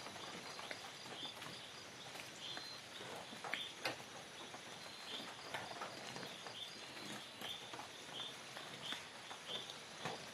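Forest ambience: a short chirping call repeats every half second to a second over a steady, faint high insect drone, with scattered sharp clicks and rustles.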